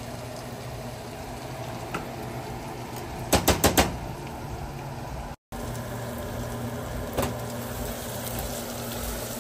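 Steady hum of a kitchen stove with chicken roasting in the pot over a high flame. About three and a half seconds in, a utensil taps the pot five times in quick succession, and taps once more about seven seconds in.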